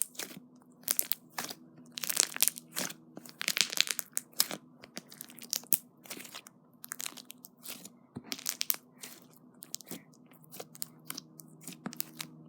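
Slime being squeezed and stretched by hand, giving a string of irregular crackles, pops and clicks as air pockets burst.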